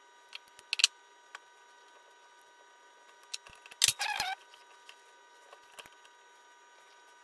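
Small clicks and taps from metal hydraulic hose fittings and plastic caps being handled on a wooden workbench, then a louder metallic clatter with brief ringing about four seconds in as a steel adjustable wrench is picked up, followed by a few faint ticks.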